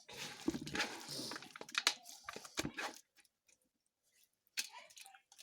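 Crunchy slime being squeezed and worked by hand, giving a dense crackling with sharp pops for about three seconds, then a short burst of crackling near the end.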